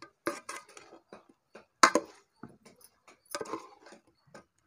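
Spoon knocking and scraping against a cooking pan while chicken pieces are stirred with spice powders: a string of short clicks and clatters, the loudest just before two seconds in.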